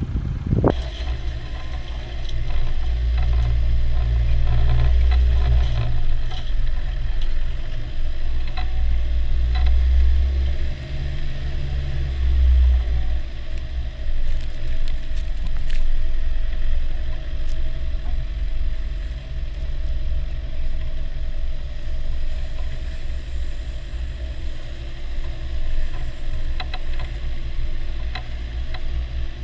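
Land Rover Defender 90 engine running as the truck drives along a snowy trail. The low engine note swells twice, about three seconds in and again around ten seconds in, with a few short knocks and rattles.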